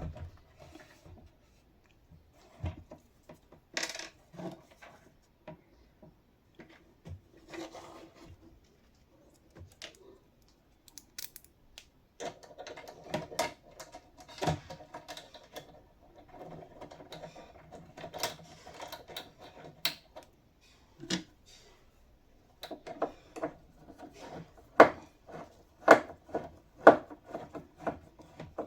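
Metal cabinet hinge and screw being handled and fitted back together: scattered sharp metallic clicks and taps, coming thicker and louder near the end, with a faint steady hum through the middle.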